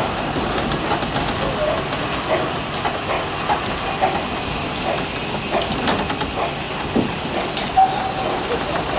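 Steam hissing from a shunting narrow-gauge steam locomotive, with scattered knocks and clanks as its vintage carriages roll slowly past. A brief squeal near the end.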